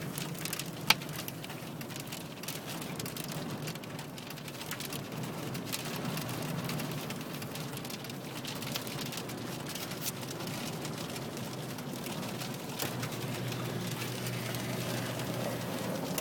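Heavy storm rain pelting a stopped van, heard from inside: a steady wash of rain with many sharp ticks of drops striking the body and windows, one louder knock about a second in, and a low steady hum underneath.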